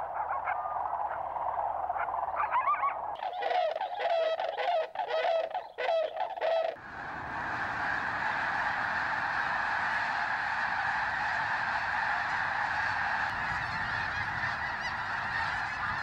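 A large flock of waterbirds calling: a few separate honking calls at first, quicker overlapping calls from about three seconds in, then from about seven seconds in a dense, unbroken chorus of many birds calling at once.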